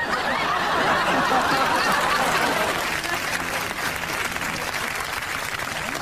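Applause from a crowd, starting abruptly, loudest for the first two or three seconds and then easing off.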